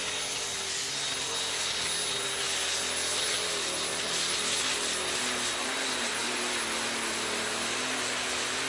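Super Stock pulling tractor's turbocharged diesel engine running flat out as it drags the weight-transfer sled, with a steady high-pitched whine held over the engine noise.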